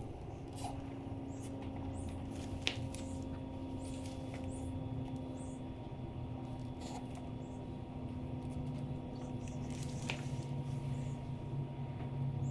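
Light clicks and small squeaks of plastic zip ties and wire being handled, with two sharper clicks, over a steady low hum.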